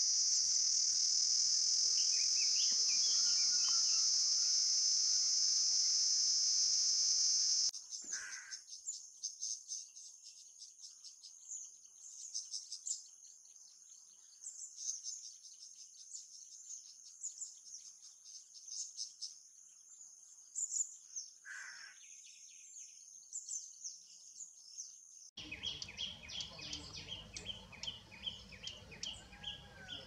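Nature ambience of insects. It opens with a loud, steady, high-pitched insect trill, which cuts off about eight seconds in to rapid, pulsing high insect chirps with a few faint calls. Near the end it switches again to chirping insects and birdsong over a low background rumble.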